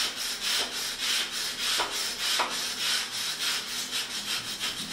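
Steel bristle wire brush scrubbing back and forth along rusted rebar and the surrounding concrete, a rhythmic scratchy rasp of about three strokes a second. The brushing strips rust and loose concrete dust from the bar to prepare it for repair.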